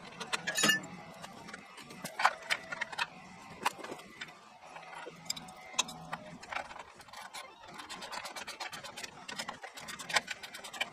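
Irregular metallic clicks and clinks of hand tools and bolts against a band sawmill's metal frame during assembly, with a couple of brief ringing strikes near the start.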